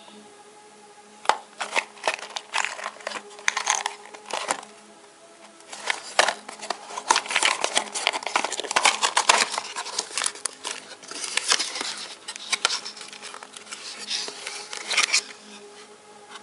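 Cardboard retail box being opened by hand: flaps pulled open, cardboard scraping and rustling with many sharp clicks and taps as an inner box is slid out, starting about a second in.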